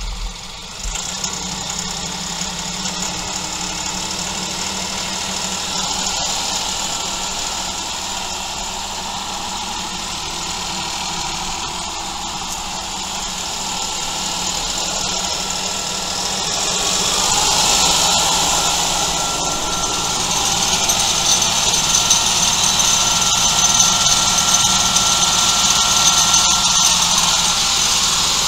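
Mahindra 2555 tractor's diesel engine running with the PTO engaged, throttled up from low idle so that it grows louder and brighter about 17 seconds in. A faint steady whine joins in later on.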